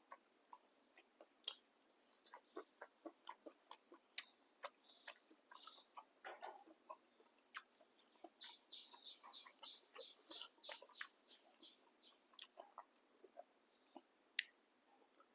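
A person eating noodles close to the microphone: many short, irregular chewing clicks and mouth smacks, with a quicker run of them about two thirds of the way through.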